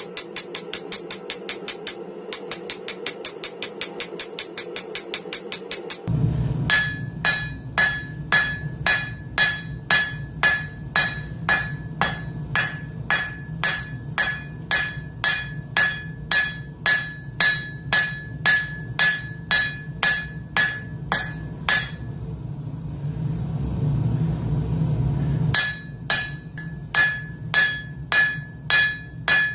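Blacksmith's hammer striking hot steel on an anvil, each blow ringing: a fast run of about four to five blows a second, then, after a sudden change about six seconds in, slower blows about two a second over a steady low rumble. Near the end the blows stop for about three seconds while the rumble goes on, then start again.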